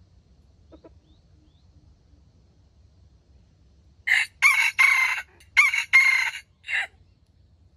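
A rooster crows once about four seconds in: one crow broken into several short loud syllables over roughly three seconds.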